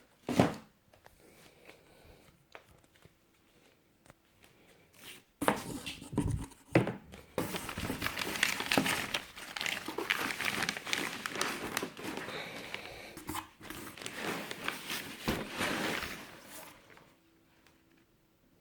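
Packaging being handled during an unboxing: a sharp knock right at the start, then, after a few quieter seconds, about eleven seconds of loud crinkling and rustling with a couple of dull thumps, stopping shortly before the end.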